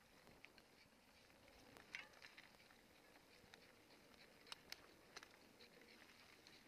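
Near silence with faint, irregular light ticks and patter. A few sharper clicks come about two seconds in and again around four and a half to five seconds.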